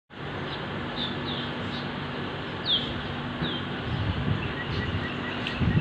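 Small birds chirping: short, high, downward-slurred chirps repeated every second or so, with a quick run of fainter notes near the end, over a steady low background rumble.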